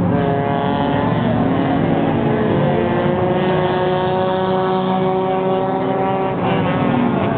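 Race car engine running hard at speed, holding a fairly steady pitch that rises and falls slightly, with a brief change in pitch near the end.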